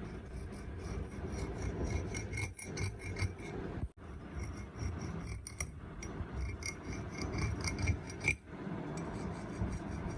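Metal being filed or scraped by hand in quick repeated rasping strokes, with a faint metallic ring, broken twice by brief abrupt gaps.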